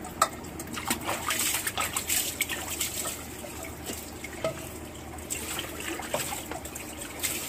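Water trickling and splashing as dishes are washed by hand at a sink, with scattered sharp clicks and clinks of utensils.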